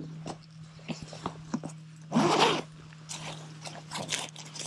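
Canvas duffel bag being handled and unzipped on a wooden picnic table: scattered light knocks and rustles, with one louder zipper rasp about two seconds in. A steady low hum runs underneath.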